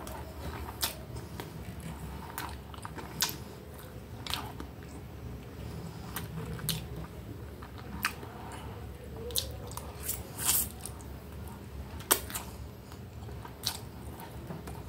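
Close-up mouth sounds of a person chewing spaghetti, with about ten sharp wet smacks and clicks at irregular intervals over a low steady hum.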